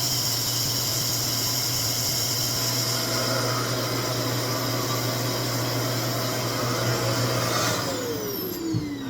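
RevAir suction hair dryer running steadily, then switched off near the end, its motor winding down with a falling whine.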